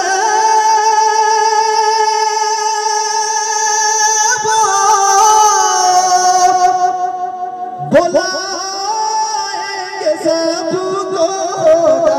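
A man singing a naat unaccompanied into a microphone, holding long drawn-out notes with the pitch gliding slowly down a little past halfway. He breaks off briefly for a breath just before the eighth second, then takes up the held notes again.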